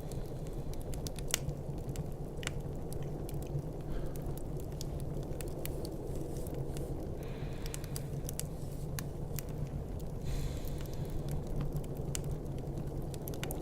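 Wood fire crackling, with scattered sharp pops, over a steady low rumble of storm wind.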